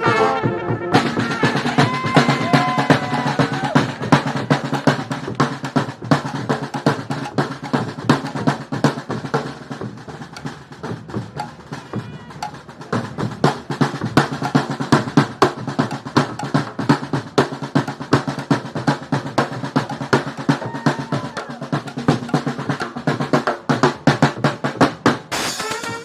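A street brass band's drum section playing a break on its own, with snare rolls, rim shots and bass drum. The drumming drops lower around the middle and builds back up, and the brass comes back in near the end.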